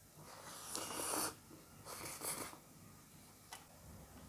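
Close-miked eating sounds as a handful of rice and chicken curry is chewed, with two breathy hisses, about one and two seconds in, and a small click near the end.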